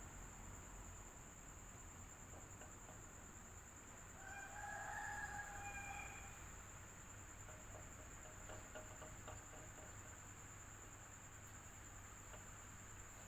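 Electric fan running steadily, with a constant high tone over its hiss. About four seconds in, a rooster crows faintly once, for about two seconds.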